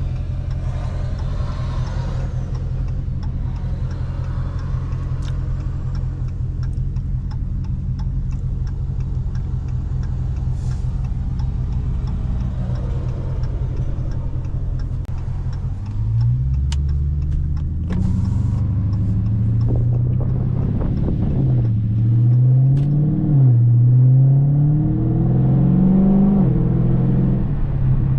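Loud 2019 Dodge Charger Scat Pack 6.4-litre HEMI V8 running steadily at low revs. About halfway through it gets louder and revs up and falls back several times, its pitch rising and dropping.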